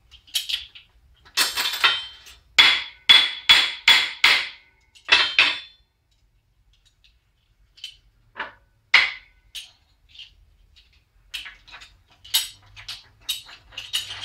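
Hammer striking a bent 14-gauge galvanized steel garage door hinge to bang it flat: a quick run of hard blows, each with a short metallic ring, then a pause and a series of lighter, irregular taps.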